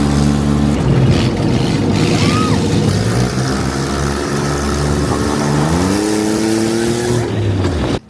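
ATV engine running, its pitch rising as it speeds up about six seconds in. The sound cuts off abruptly near the end.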